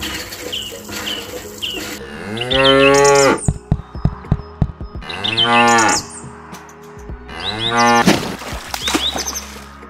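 Cattle mooing: three long moos, each rising and then falling in pitch, with a quick run of sharp clicks between the first and second. Faint short chirps come before the first moo.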